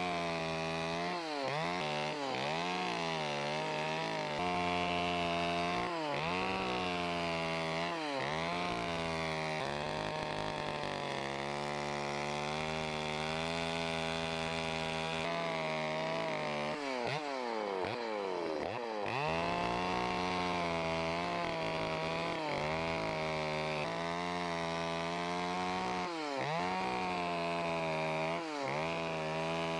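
Chainsaw running steadily while carving wood, its engine pitch dipping and recovering every second or two as the chain bites in, with one deeper drop about seventeen seconds in.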